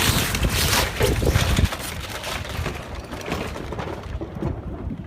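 Wind buffeting the microphone on a sailboat, a rushing noise with heavy low rumble, loudest for the first second and a half and then easing.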